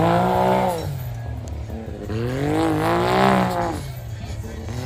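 Side-by-side UTV engine revving hard in two swells, its pitch climbing and then falling each time, as it powers through deep mud.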